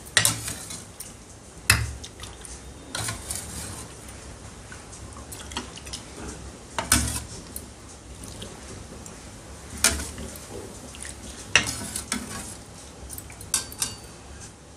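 Steel ladle clinking and scraping against a steel pan and a ceramic bowl as chicken soup is ladled out and poured into the bowl: several sharp clinks at irregular times, with quieter scraping and splashing between them.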